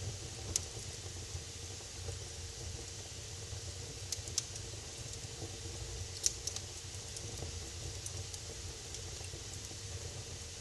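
Wood fire burning in a fireplace: a steady low rumble and hiss with scattered sharp crackles and pops, a few close together about four seconds in and again around six seconds.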